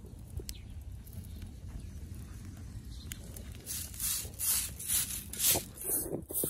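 Short hand broom of tied stalks sweeping loose sandy ground, a run of brisk swishing strokes about two a second that starts about halfway in, over a low rumble.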